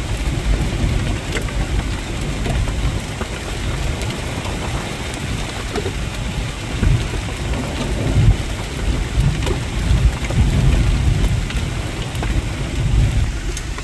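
Heavy rain falling steadily, with many small drop hits, over a deep low rumble that swells and fades several times.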